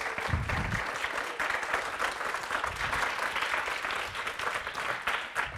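Audience applauding: many hands clapping together in a steady patter that thins out a little near the end.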